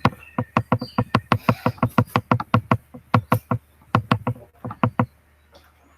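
A rapid, uneven series of sharp clicks or taps, several a second, stopping about five seconds in.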